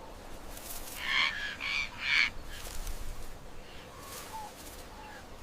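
A bird giving three harsh, cawing calls in quick succession, about a second in, over a faint steady background hiss.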